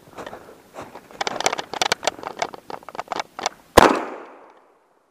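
Quick crunching footsteps through snow and brush, then a single shot from a .410 single-shot shotgun about four seconds in, fired at a flushed cottontail rabbit, its report trailing off briefly.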